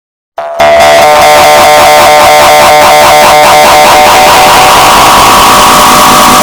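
Gravity coil sound effect played very loud, a dense stack of tones with a rapid pulse, cutting in suddenly about half a second in after silence.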